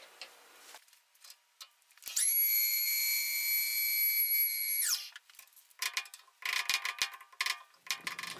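An electric power-tool motor whines steadily at a high pitch for about three seconds, then spins down and stops. It is followed by a run of metallic clinks and clatter from a steel bar being handled in a machinist's vise.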